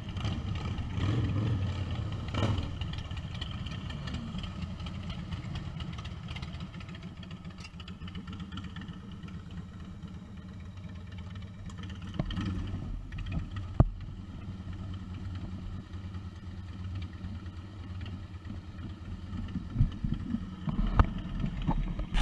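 Motorcycle engines idling, briefly louder a couple of times. A sharp knock comes a little past halfway, and a few knocks near the end as the camera is handled.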